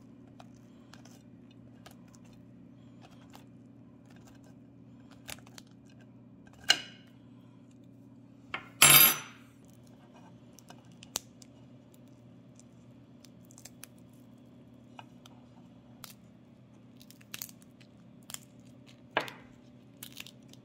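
Handling of a steamed shrimp over a ceramic plate: scattered small clicks of shell and a metal spoon against the plate, with a few louder brief noises as the shell is pulled apart, the loudest about nine seconds in. A faint steady low hum runs underneath.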